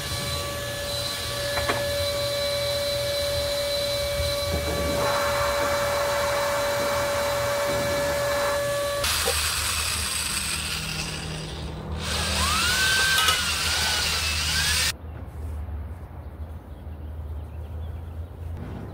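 A power tool runs with a steady whine for about nine seconds, then a cordless drill fitted with a paddle mixer stirs a can of paint, its pitch rising and falling as the speed changes. It stops suddenly about fifteen seconds in, leaving a low hum.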